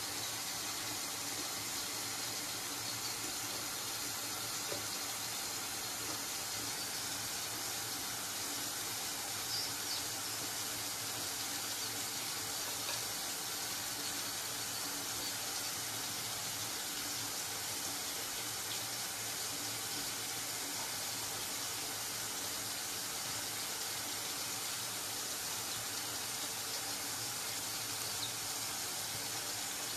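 Tap water running steadily into a sink, an even, unbroken rush, left on to raise the room's humidity.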